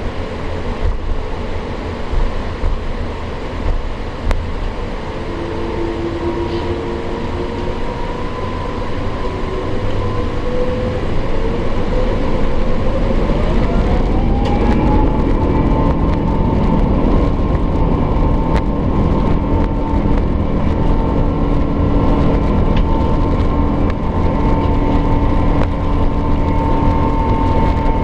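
Rolls-Royce Trent XWB turbofans of an Airbus A350-900, heard inside the cabin, spooling up to takeoff thrust. Their whine glides up in pitch about halfway through and then holds steady under a growing low rumble of the takeoff roll.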